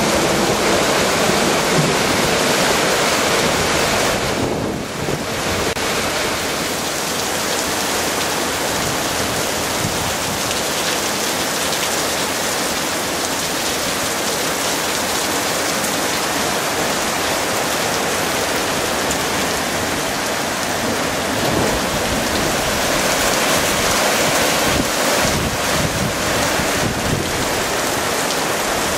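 Torrential rain driven by strong wind: a loud, steady wash of downpour noise that dips briefly about five seconds in.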